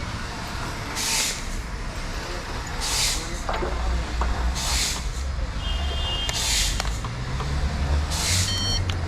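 Short hissing bursts repeating about every two seconds over a steady low hum, with a few short electronic beeps near the end.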